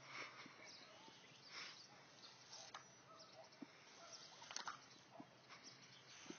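Near silence: faint outdoor background, with a few brief soft clicks, the most distinct about four and a half seconds in.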